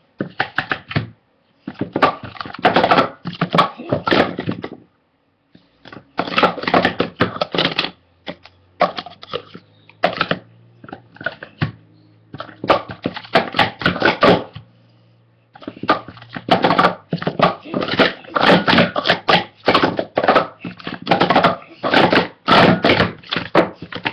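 Plastic sport-stacking cups clattering rapidly against each other and the mat as they are stacked up and down at speed, in several quick runs with short pauses between them. A faint low hum sits under the quieter middle stretch.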